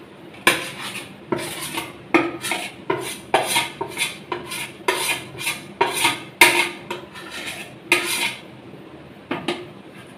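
A spoon scraping fresh chhana off a plate into a frying pan, in short repeated scrapes and clinks of metal on crockery, about two a second, stopping near the end.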